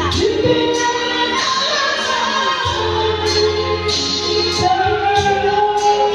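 A woman singing a song with long held, gliding notes over instrumental accompaniment with a steady beat.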